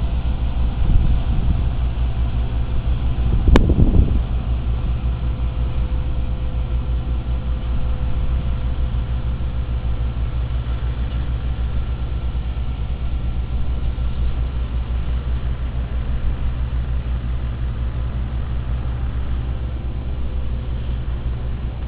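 Road roller's diesel engine running steadily with a low, pulsing rumble, and one sharp click about three and a half seconds in.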